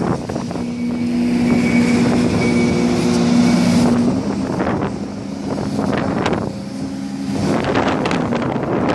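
Heavy earthmoving machine's diesel engine running, its note holding steady, then easing off and picking up again, with a few sharp knocks near the end.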